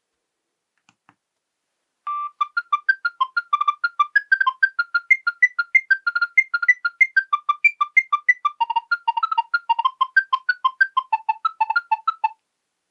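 Nokia 7210 polyphonic ringtone playing a quick, bright synthesized melody of short plucked notes, about six a second. It starts about two seconds in and stops abruptly near the end.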